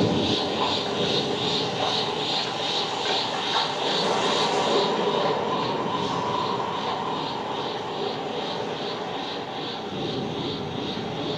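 Sound effect played from the Tsume HQS Vegeta statue's built-in speaker: a steady jet-like rushing hum with an even pulsing of about three beats a second, slowly fading.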